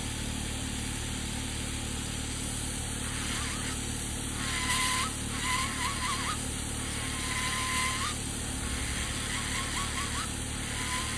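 Electric podiatry nail drill with a small burr grinding down a thick fungal big toenail in about five short passes over a steady motor hum. Each pass is a whine that wavers while the burr bites and turns up in pitch as it lifts off the nail.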